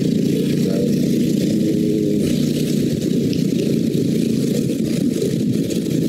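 Yamaha Jupiter Z motorcycle's small single-cylinder four-stroke engine running steadily while the bike is ridden along the road.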